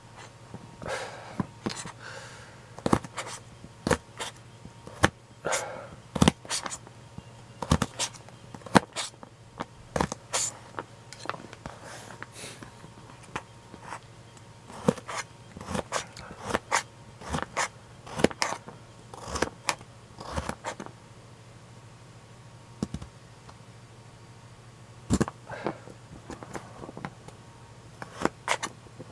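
Kitchen knife slicing raw carrot slowly on a thin plastic cutting sheet: irregular sharp knocks of the blade on the board, about one a second, with a pause of a few seconds about three-quarters of the way through.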